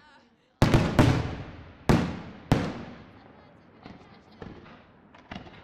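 Aerial firework shells bursting: four or five sharp bangs within the first two and a half seconds, each trailing off in a long echo, followed by a few fainter pops.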